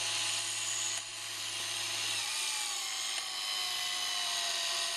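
Small electric gear motor whining steadily as it turns a six-position Geneva cam, indexing the Geneva wheel step by step. One tone in the whine sinks slowly over the last few seconds.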